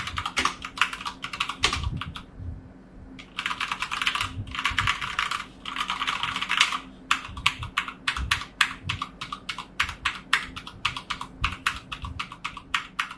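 Typing on a Dareu A87 mechanical keyboard with stock Cherry MX Red linear switches: fast, dense keystrokes with a brief pause about two seconds in, then slower, separate keypresses from about seven seconds on.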